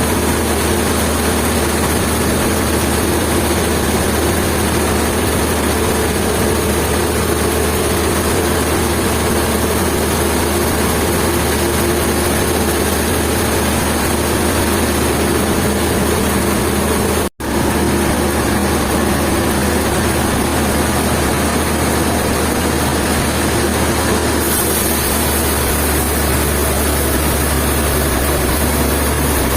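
Heavy engine or sawmill machinery running steadily, with a momentary cut-out of the sound just past halfway.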